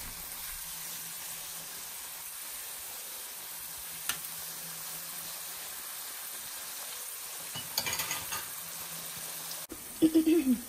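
Batter-coated cauliflower florets deep-frying in hot oil in a kadai, a steady sizzle, with a metal ladle clinking against the pan once about four seconds in and several times around eight seconds. A brief louder burst comes at the very end.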